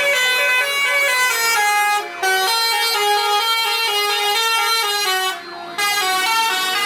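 Bus telolet horns playing a long 'snaking' run of stepped musical notes, several horn tones sounding together, with a short break about two seconds in and a longer one about five seconds in.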